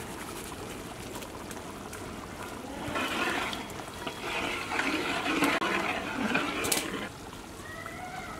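Thick mutton curry gravy in a large pot sloshing and churning as it is stirred, for about four seconds in the middle. Before and after, the simmering curry bubbles quietly.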